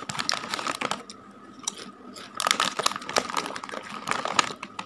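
Crisp potato chips being bitten and chewed with a dry crunching crackle, thickest in the second half, along with the crinkle of the foil chip bag as a hand rummages in it.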